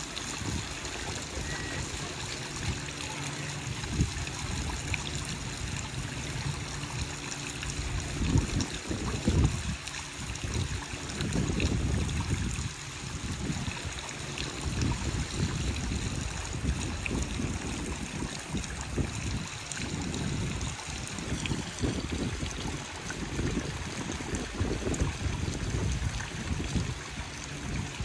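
Stone tiered garden fountain, water trickling from its upper bowl into the basin below in a steady splashing stream. Irregular low rumbling gusts run underneath.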